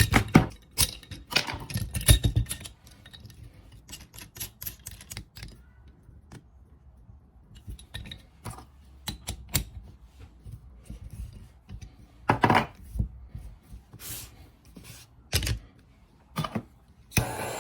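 Irregular clicks, clinks and knocks of hard objects being handled, a few of them louder thuds. A steady noise starts near the end.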